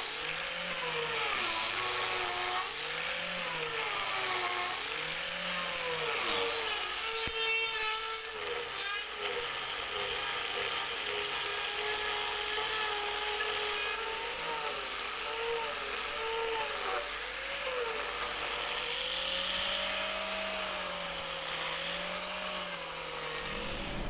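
Arbortech TurboPlane carving blade on an angle grinder, shaving a wooden block: a steady motor whine whose pitch sways down and up every couple of seconds as the blade bites and eases off, and holds steadier through the middle.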